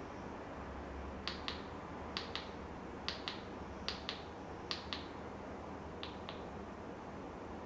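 Buttons on a handheld remote control clicking: six presses about a second apart, each a sharp double click as the button goes down and comes back up. A faint steady low hum lies underneath.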